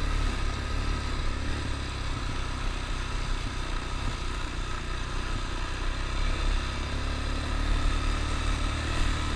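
ATV engine running steadily, with no change in speed.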